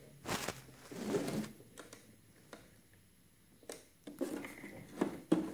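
Shirt fabric rustling as it is smoothed and positioned under a sewing machine's presser foot, twice near the start and again near the end, with a few light clicks and knocks from handling at the machine. The sewing machine is not running.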